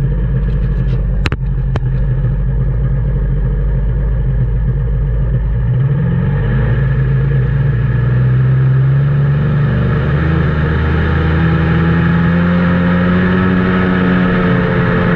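Two-stroke Sea-Doo jet ski engine pulling away from low speed: a steady running note that rises smoothly in pitch from about six seconds in and holds high, with water rushing and spraying off the hull. A clean, smooth take-off with no hesitation or bog, the sign of a low-speed circuit metering enough fuel to reach pop-off.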